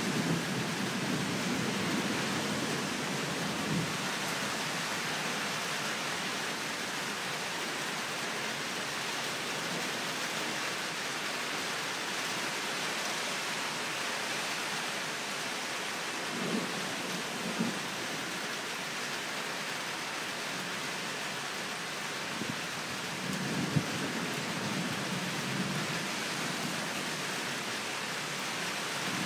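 Thunderstorm: steady rain hiss with thunder rumbling low. A rumble fades out over the first few seconds, two short rumbles come about halfway through, and a longer one rolls about three quarters of the way in.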